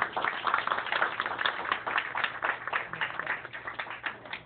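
Applause from a small audience, many hands clapping quickly, dying away at the end.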